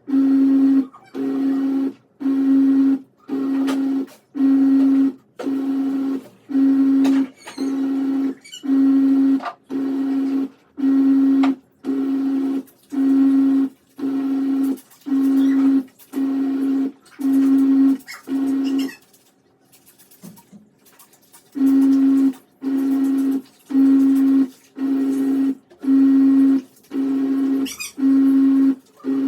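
Top-load automatic washing machine agitating in its wash cycle: the motor hums in short, even strokes about once a second as the wash action turns one way and the other, pausing for about two seconds roughly two-thirds of the way through.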